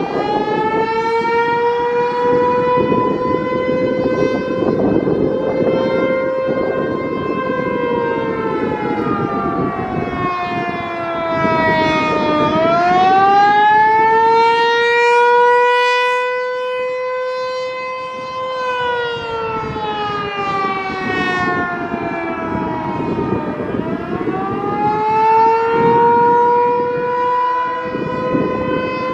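American Signal T-128 outdoor warning siren sounding a wail during its monthly test: a single loud tone holds at full pitch, slides down and climbs back up about twelve seconds in, holds again, then dips and climbs once more near the end.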